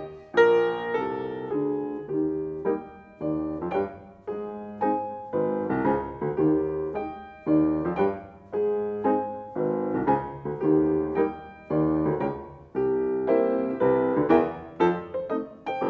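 Grand piano played solo: struck chords and melody notes that ring and fade in a steady, lilting rhythm.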